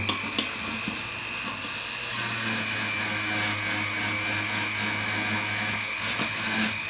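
Pendant drill (flexible-shaft motor) running steadily, a constant high whine over a low hum, as its small white nylon brush buffs a metal pendant's jump ring and top loop.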